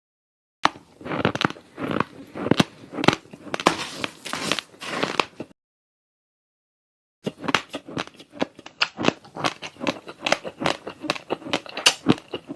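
Close-miked crunching of raw rice being bitten and chewed, a dense run of sharp crackly snaps. It stops dead for about a second and a half, then resumes as quicker, clickier crunches.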